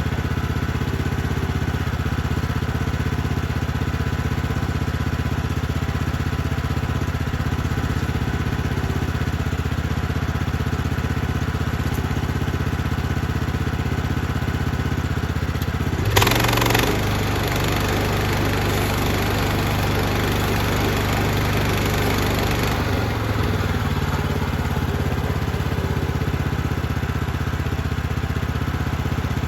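Portable bandsaw sawmill engine running steadily. About halfway there is a sudden louder burst, followed by a rushing hiss for several seconds before the engine settles back to its steady running.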